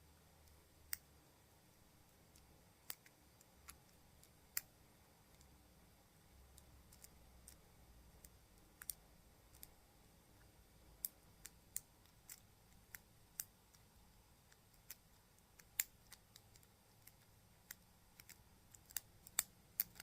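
Single pin picking a Master Lock 7804EURD padlock: faint, irregular sharp metallic clicks of the pick working the pins one at a time, coming closer together near the end.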